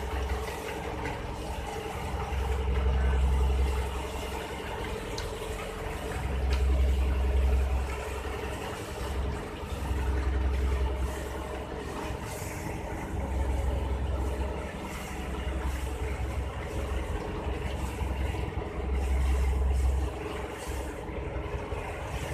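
Fishing boat's engine running with a steady drone, under a deep rumble that swells and fades about every three to four seconds.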